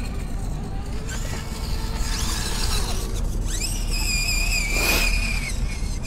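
Small electric motor of a 1/24-scale RC rock crawler whining: a high tone that glides up about three and a half seconds in and holds, wavering, for about two seconds, after a fainter rising whine about two seconds in.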